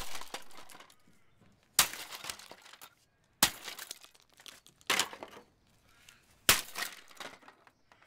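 Sledgehammer blows smashing an old plastic Ringgrip RSFH3 fan heater. Four heavy strikes come about a second and a half apart, each followed by a clatter of cracking plastic and loose pieces.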